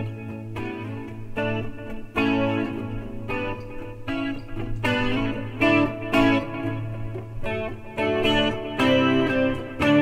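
Electric guitar played through a Valeton GP-100 multi-effects pedal: a loose run of picked notes and chords, each with a sharp attack.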